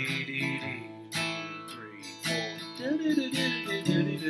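Acoustic guitar flatpicked: a bluegrass lick of picked single notes and chord tones moving through a C to D to G chord change, each note struck with a clear pick attack and left to ring.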